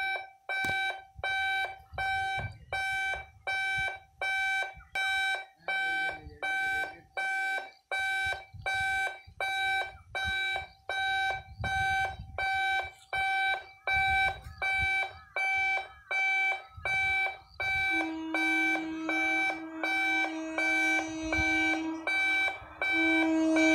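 Level-crossing warning alarm beeping steadily, about one and a half electronic beeps a second, the signal that a train is approaching the gate. From about two-thirds of the way in, the approaching electric local train's horn joins it with a long sustained note that breaks briefly and then resumes.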